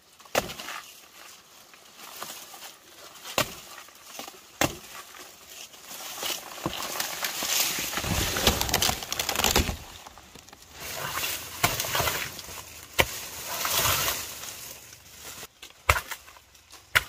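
Rustling of banana leaves and dry grass as the banana plant is handled, with several sharp chops of a knife into the soft banana stalk spread through it.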